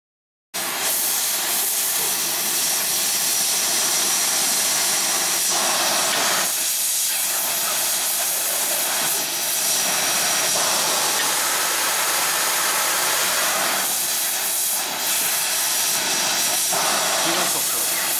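Twin-tip gas brazing torch flames hissing steadily while heating a pipe joint for brazing. The hiss starts abruptly about half a second in.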